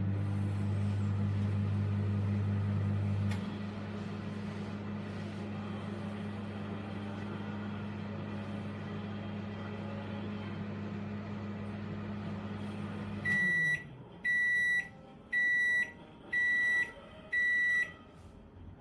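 Toshiba MW3-AG20PF microwave oven running with a steady electrical hum; a little over three seconds in a click sounds and the hum drops to a lower level. The hum stops near the end and the oven gives five evenly spaced high beeps to signal that the cooking cycle has finished.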